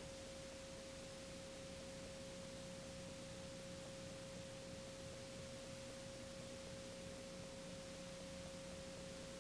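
A faint, steady test tone on one unchanging pitch over tape hiss: the line-up tone that runs with the slate card at the head of a commercial on a videotape master.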